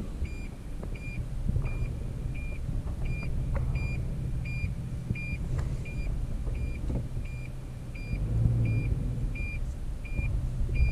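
Toyota Tacoma's reverse-gear warning chime beeping steadily inside the cab, about two short high beeps a second, as the truck sits in reverse. The engine runs low underneath and swells about eight seconds in, after a click from the gear lever at the start.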